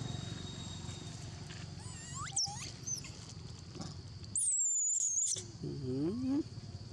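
Baby long-tailed macaque giving shrill, high-pitched squealing calls: a few short gliding cries about two seconds in, then one long high squeal a little past the middle, followed by a shorter, lower rising cry.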